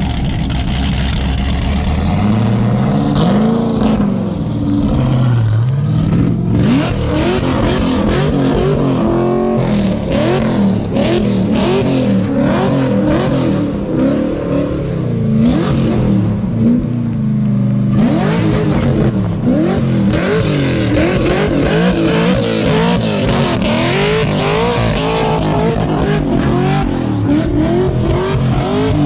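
Supercharged LSA V8 in a 1972 Chevrolet Monte Carlo, running low and steady, then from about two seconds in revving hard, its pitch rising and falling over and over in quick surges.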